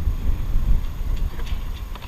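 Wind buffeting the microphone, an uneven low rumble, with a few faint scattered ticks.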